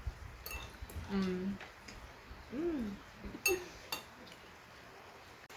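A few faint clinks of cutlery against dishes during a meal, with two or three short, soft voice sounds, one rising and falling in pitch.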